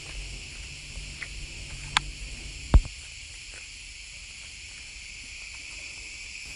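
Steady high-pitched insect chirring in rural open country. A sharp click about two seconds in and a louder knock just under a second later stand out above it.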